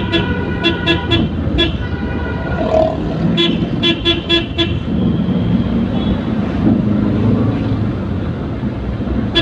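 Vehicle horn honking in rapid short blasts, a quick run at the start and another about three and a half seconds in, over steady road and engine noise.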